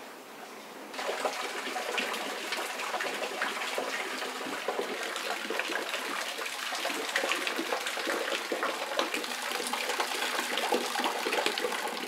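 Thin waterfall splashing into a rock pool: a steady rush of falling water full of small splashes, starting suddenly about a second in.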